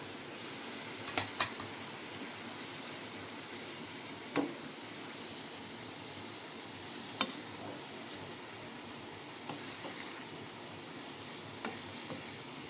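Bitter gourd pieces frying in a tomato masala in a pan: a steady sizzle, with a spatula stirring and knocking against the pan a handful of times.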